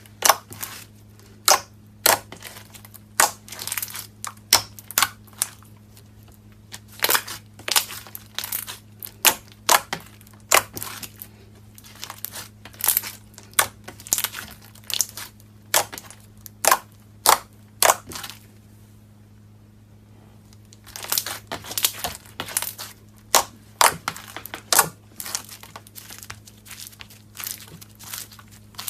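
Slime being squeezed and poked by hand, giving a quick, irregular run of sharp pops and crackles. The pops pause for a couple of seconds about two-thirds through, then resume. A faint steady low electrical hum sits underneath.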